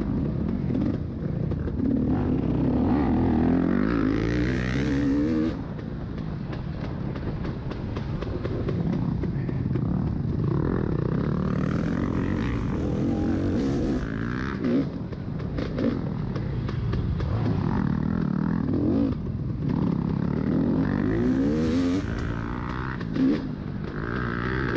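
Off-road motorcycle engine heard from onboard, revving up and dropping off again and again as the rider works the throttle through the course, with a few sharp knocks from the bike.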